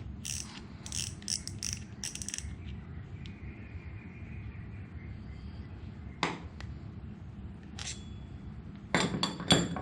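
Yumoshi spinning reel being handled as its spool is taken off: a run of small mechanical clicks and ticks from its metal and plastic parts, a quieter stretch in the middle, then a few sharper clicks near the end.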